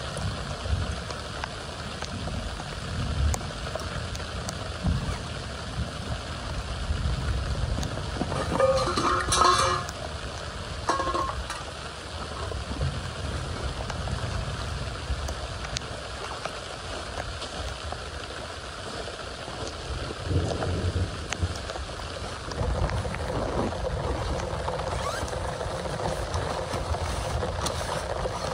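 Steady hiss of rain falling, with irregular low rumbling on the microphone and a brief pitched sound about nine seconds in.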